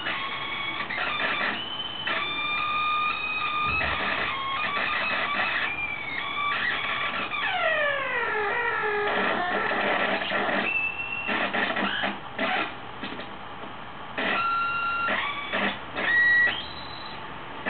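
Homemade NAND-gate square-wave oscillator synth on a breadboard, glitchy and self-modulating: high, buzzy tones that jump between pitches and stutter on and off. About eight seconds in the pitch slides downward in a few falling sweeps as a potentiometer knob is turned.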